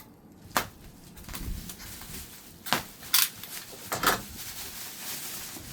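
Bubble wrap around a graphics card being handled and pulled open: rustling with several sharp crackles, the loudest about three seconds in.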